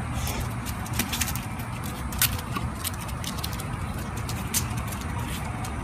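Steady low street rumble with scattered light clicks and jingles.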